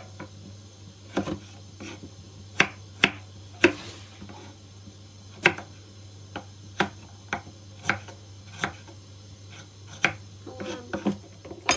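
Kitchen knife slicing a peeled broccoli stalk on a wooden surface: sharp knocks as the blade goes through the soft stem and meets the wood, about one a second at an uneven pace.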